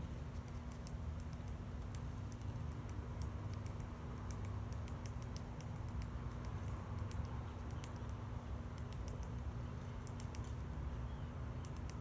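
Downy woodpecker pecking at tree bark: irregular light taps in quick clusters. Under them runs a low steady rumble.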